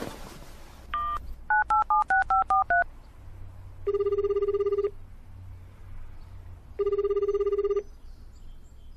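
A telephone call being placed: a short beep, then eight quick keypad tones as a number is dialled, then the ringback tone ringing twice, one-second rings about three seconds apart, while the line rings at the other end.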